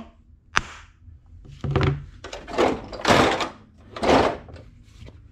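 A sharp knock about half a second in, then a metal tool-chest drawer sliding open and shut with tools rattling inside, in several noisy strokes.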